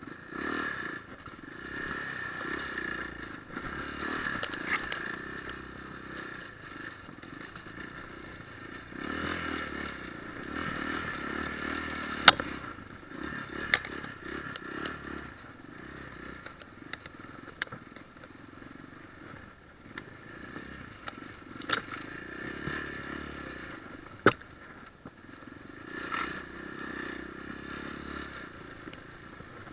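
Enduro dirt bike's single-cylinder four-stroke engine pulling through rough off-road ground, its note rising and falling as the throttle opens and closes. Sharp knocks and clatter from the bike come through several times, the loudest about twelve seconds in.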